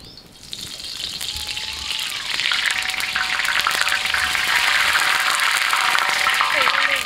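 Cooking oil poured onto a hot flat iron griddle (tawa), sizzling and crackling. It swells over the first two seconds or so as the oil spreads, then sizzles steadily.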